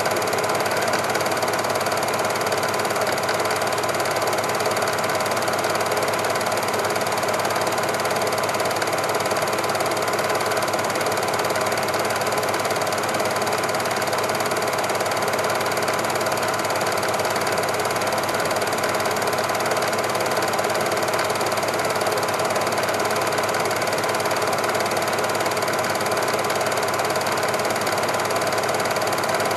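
Super 8 film projector running: a steady, even mechanical clatter and whirr.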